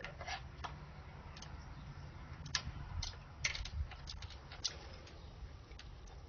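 Irregular light clicks and knocks of small plastic toy cups being handled by a cockatoo's beak in a plastic toy sink, over a steady low background rumble.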